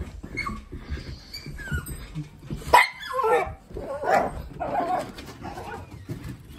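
Miniature dachshund whining, then giving a run of sharp high yips and barks, the loudest about three seconds in, some falling in pitch; it barks like this whenever it is let out the door.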